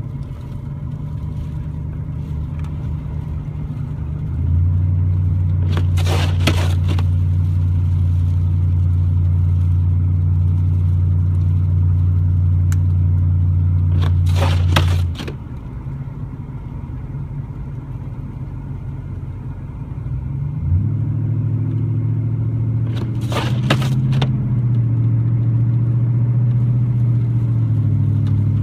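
Vehicle engine and road drone heard from inside the car, a steady low hum that gets louder about four seconds in, drops back about fifteen seconds in and rises again with a change of pitch near the twenty-second mark. Three short scrapes come roughly eight seconds apart.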